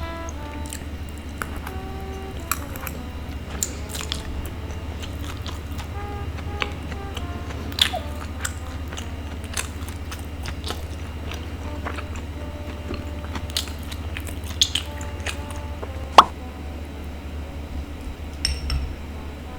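Close-miked chewing of a sticky glutinous rice ball, with scattered sharp wet clicks and smacks and one louder smack about 16 seconds in, over light background music.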